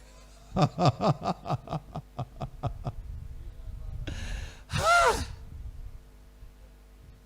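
A man's voice in a quick, even run of short vocal bursts, about five a second, then a breathy rush and one loud exclamation that rises and falls in pitch.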